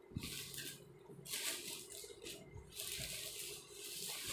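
Rustling and handling noise from the clothes organizer being moved about: three or four bursts of rustle, each up to about a second long, with a few soft knocks.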